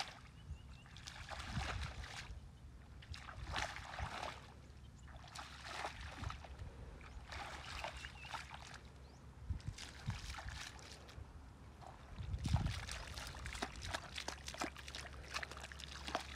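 Barefoot footsteps wading through shallow muddy water, sloshing and splashing with each step at a slow walking pace; near the end the feet squelch into soft mud.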